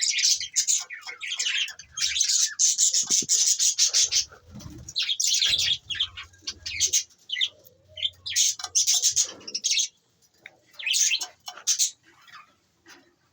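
Budgerigars chirping and chattering in rapid, high-pitched bursts, thinning to scattered chirps with short pauses near the end.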